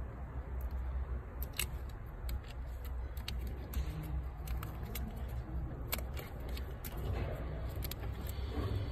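StarLine car alarm wiring and plastic connectors being handled and fitted: scattered small clicks and rustles, over a steady low hum.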